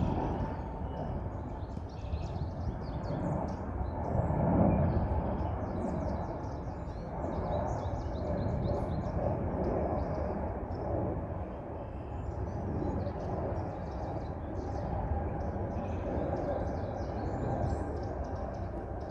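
Small birds chirping and twittering over and over, over a steady low rumble that swells briefly a few seconds in.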